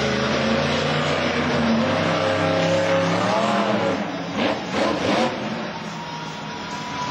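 Monster truck engine running under power, then revving up and down in a few quick blips from about four to five seconds in, and after that running quieter.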